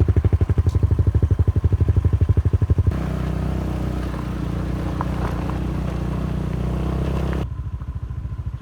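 Motorcycle running while being ridden along a road, with a rapid low pulsing. About three seconds in it turns smoother and steadier, and near the end the pulsing returns.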